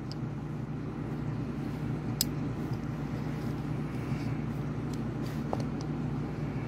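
Steady low background hum with faint handling noise; one sharp click about two seconds in as a small die-cast metal toy car is handled.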